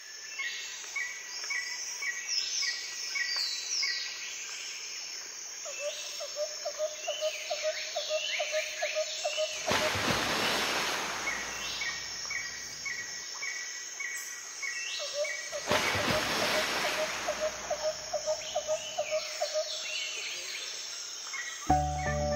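Birds calling: rows of short repeated chirps, quick falling whistles and a low trill. Two long swells of rushing noise come in about ten and sixteen seconds in.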